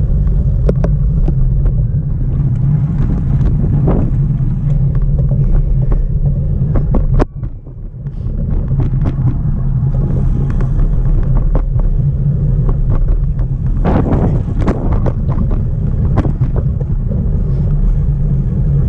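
Wind buffeting the microphone of a body-mounted action camera on a moving road bicycle: a steady low rumble with scattered clicks and knocks. The rumble drops away for about a second around seven seconds in.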